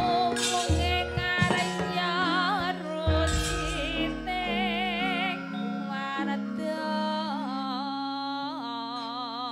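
Javanese gamelan music: a high singing voice with a wavering, ornamented line over sustained metallophone tones, with a few low drum strokes in the first three seconds.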